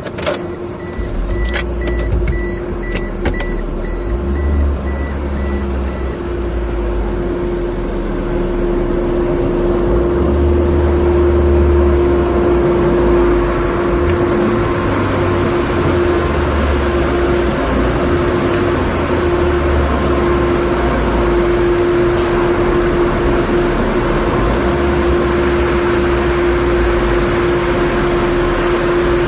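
A motor vehicle running: a steady hum with a low rumble that swells and fades. A short run of faint, evenly spaced high beeps sounds in the first few seconds.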